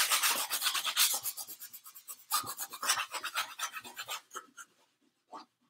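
Cloth rag rubbing paint onto a stretched painting canvas in quick, scratchy back-and-forth strokes, pausing briefly near the end.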